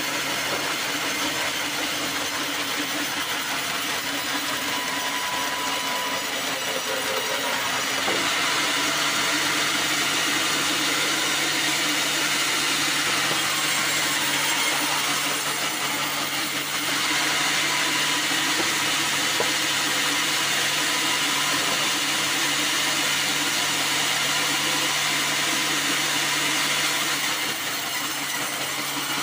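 Band sawmill running, its band blade cutting lengthwise through a black acacia log: a steady hum from the drive with a loud, even rush of cutting. The cutting gets louder about eight seconds in and drops back near the end.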